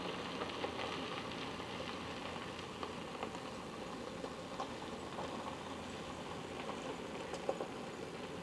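Nylon dome tent being pitched: steady crackling rustle of fabric with scattered soft clicks from the poles and fittings, over a constant hiss.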